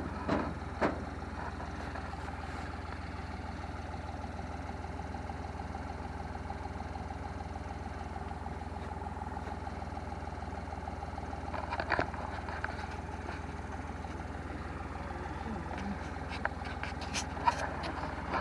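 An engine idling steadily, with a few light knocks just after the start and scattered clicks near the end.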